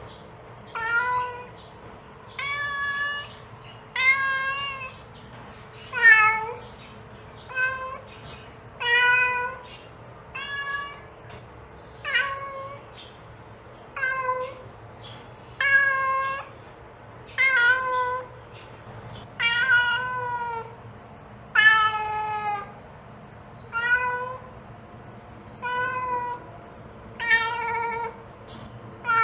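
Adult cat meowing over and over, one short call every second and a half to two seconds, about seventeen in all: a mother cat calling for her kittens.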